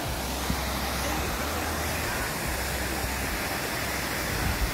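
Steady rushing of a small waterfall cascading over rocks into a pool.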